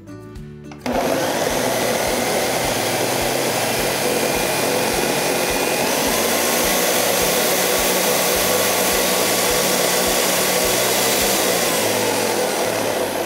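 Countertop blender running at high speed, pureeing cooked carrots and broth into a smooth soup. It starts abruptly about a second in, then runs steadily.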